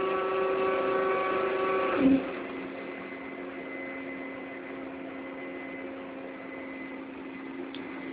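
Ship's crane machinery humming steadily. About two seconds in there is a brief knock, and the hum drops to a lower, quieter steady tone.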